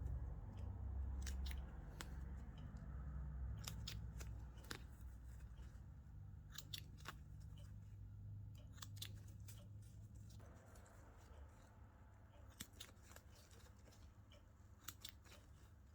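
Scissors snipping thread, heard as scattered sharp clicks, over a low hum that stops about ten seconds in.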